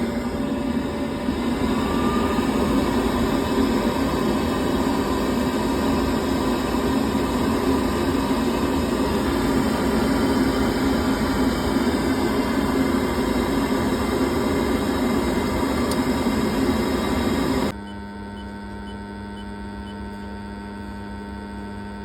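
Steady machine noise that drops suddenly, about eighteen seconds in, to a quieter steady hum with a low tone.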